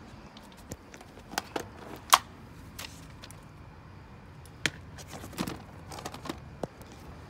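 Handling noise from a phone: irregular clicks, taps and scuffs against the microphone, the loudest about two seconds in and a cluster of smaller ones near the end.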